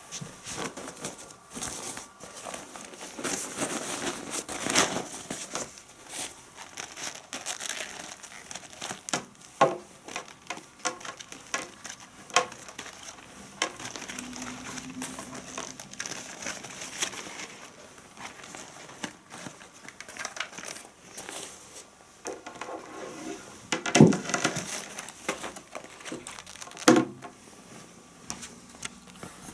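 Crinkly plastic being handled, crackling and rustling unevenly, with a few sharp knocks about ten, twelve, twenty-four and twenty-seven seconds in.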